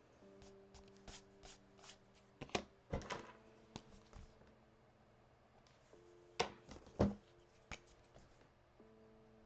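Scattered light taps and clicks of drawing tools and paper being handled on a desk, irregular, with a few louder knocks about two and a half to three seconds in and again around six and a half to seven seconds in.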